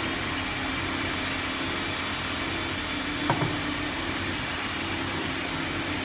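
Induction forging furnace running under load as it heats steel bar ends red: a steady machine whir with a faint hum and faint high tones. A single short knock about three seconds in.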